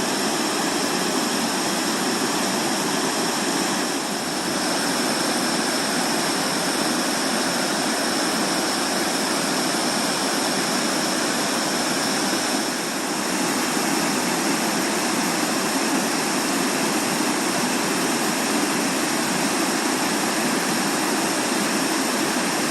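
Waterfall in full flood after snowstorms, rushing with a steady, loud roar of falling water.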